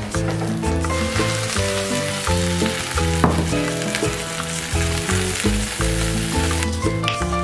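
A hot ceramic baking dish of roasted beef and chicken liver, fresh from the oven, sizzling with a steady hiss that starts about a second in and stops near the end, over background music.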